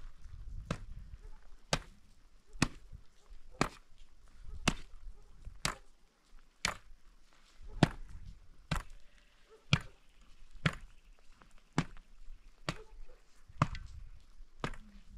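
Metal shovel blade knocking and scraping on the ground in steady strokes, about one sharp knock a second, with a low rumble between the strokes.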